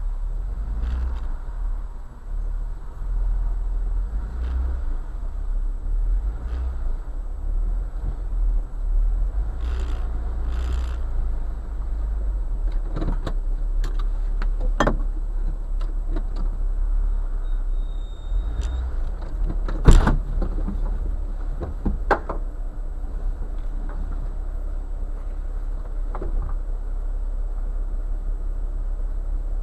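Jeep engine running with a low, steady rumble as it crawls slowly through a tight rocky passage. Scattered knocks and clicks come and go, with one sharp knock about two-thirds of the way through.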